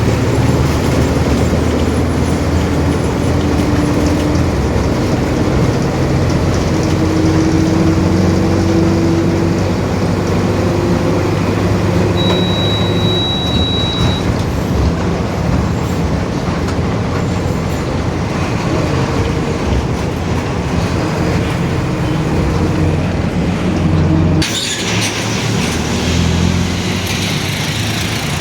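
Mercedes-Benz OF-1721 BlueTec 5 city bus running under way, engine and drivetrain with a whining drone from its growling differential. A high beep sounds for about two seconds midway. Near the end a steady hiss sets in suddenly as the low engine sound drops.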